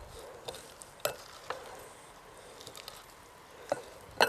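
Wooden spatula stirring chopped ivy gourd coated in oil and spices in a glass bowl: a soft wet scraping, broken by a few sharp clicks as the spatula knocks against the glass, twice near the end.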